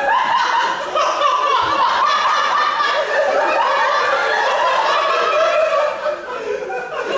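Loud wordless human vocalizing that wavers in pitch and runs on without a break, dipping in level about six seconds in.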